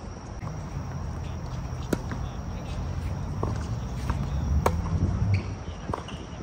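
Tennis ball struck back and forth with rackets in a rally: sharp pops roughly every one and a half seconds, two louder ones about 2 and 4.5 seconds in and fainter ones between, over a low rumble.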